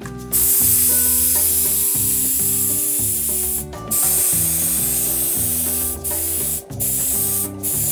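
Compressed-air spray gun hissing as it sprays coloured cocoa butter onto a chocolate mould. The spray comes in bursts: one long spray of about three seconds, then several shorter ones with brief pauses between.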